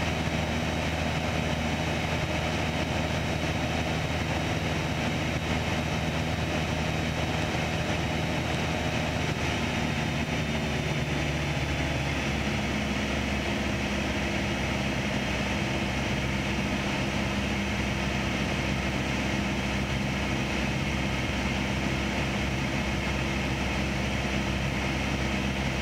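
Cabin drone of a Piper PA-28 Archer in flight: its four-cylinder Lycoming engine and propeller running steadily under wind noise. The engine note shifts about halfway through as the airplane goes from level flight into a descent.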